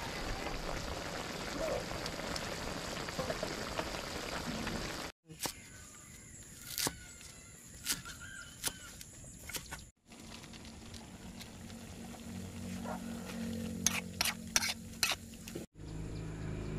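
Snails frying in a steel wok, a dense steady sizzle. This cuts to a cleaver chopping spring onions on a wooden board, sharp separate knocks, and near the end comes a quick run of loud clicks.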